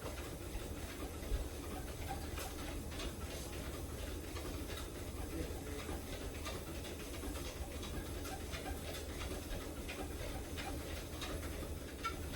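Motorised treadmill running with a steady low hum while an older dog walks on it and pants.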